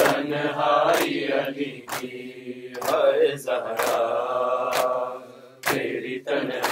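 Men's voices chanting an Urdu nawha lament together, unaccompanied, drawing out the lines of the refrain. It is marked by sharp chest-beating strikes (matam) about once a second.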